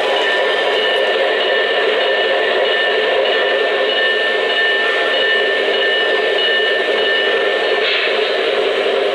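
Sound system of an O-gauge model Pennsylvania Railroad Alco diesel locomotive playing a steady diesel engine drone with a thin high whine over it; the whine drops out near the end.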